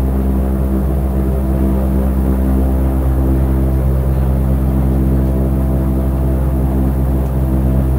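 ABC A60R airship's engines and propellers droning steadily at a constant pitch.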